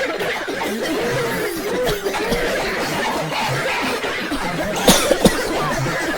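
A crowd of people talking and laughing over one another in a rail car, with two short sharp sounds about five seconds in.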